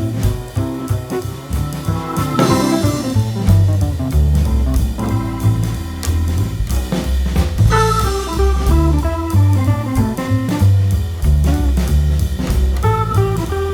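Background music: an instrumental band with guitar, bass and drum kit playing with a steady beat, with cymbal crashes about two and a half and eight seconds in.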